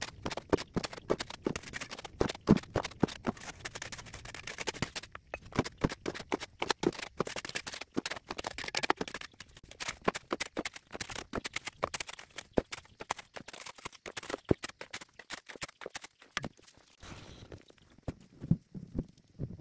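Steel shovel scraping into gravelly soil and broken rock and tipping the loads into a metal wheelbarrow: a quick run of scrapes and knocks that falls quiet near the end.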